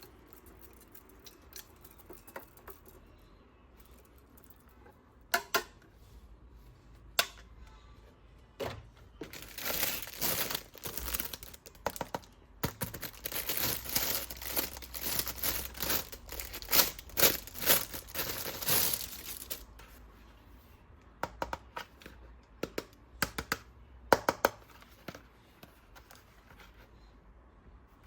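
Toy packaging being unwrapped: a few sharp clicks, then about ten seconds of dense crinkling and tearing, then a run of separate sharp clicks near the end.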